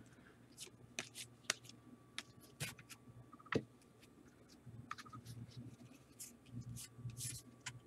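Faint handling of trading cards: scattered light clicks and short scraping rustles as cards are slid and flipped.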